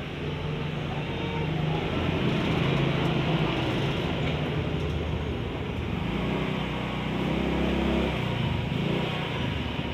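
A road vehicle's engine running close by: a low, steady hum that grows louder a second or two in and drops away about eight seconds in, over general street traffic.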